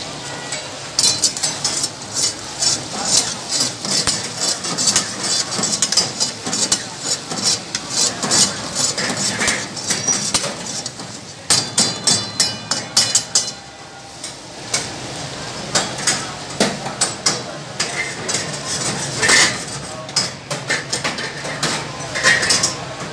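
A metal ladle repeatedly clanks and scrapes against an iron karahi wok as lamb pieces are stirred and fried in fat, with a steady sizzling hiss underneath.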